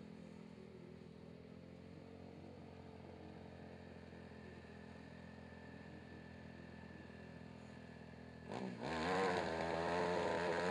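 Racing ATV engine running: a low steady drone, then about eight and a half seconds in it suddenly gets much louder and revs, its pitch wavering up and down.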